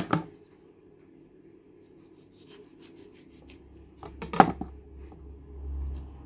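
Kitchen handling noise: a sharp knock at the start, a short run of faint ticks about two and a half seconds in, then a louder cluster of knocks about four seconds in, with a low rumble underneath towards the end.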